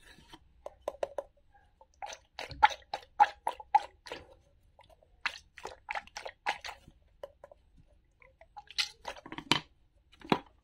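Squishy toy carrot and plastic play-food being squeezed and handled, giving runs of short squelching, crackling clicks in three clusters.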